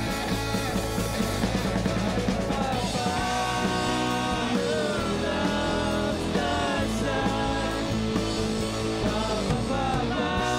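Live rock band playing electric guitars and drums, with the guitarist singing lead from about three seconds in.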